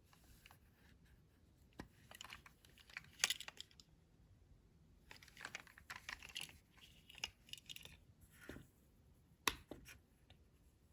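Hands handling a plastic toy truck and its packaging: scattered light clicks and crinkling, with a sharper click about three seconds in and another near the end.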